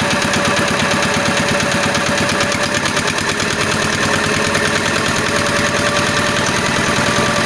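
Small stationary engine of a generator set running steadily, with a fast, even beat.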